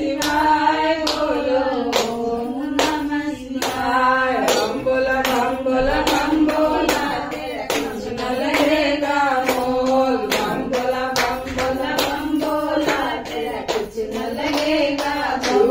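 Women singing a Hindi devotional Shiva bhajan, with hand claps keeping a steady beat about once a second.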